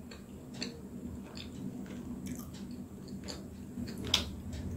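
Close-miked chewing of steamed momo with the mouth closed: scattered faint, wet mouth clicks and smacks, with one sharper click about four seconds in.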